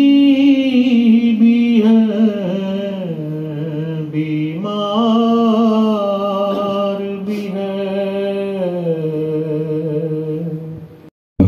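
A man chanting a slow, drawn-out elegiac verse of an Urdu mourning poem into a microphone. Each syllable is held as a long note; the pitch steps down, rises about halfway through, then falls again. It cuts off abruptly near the end.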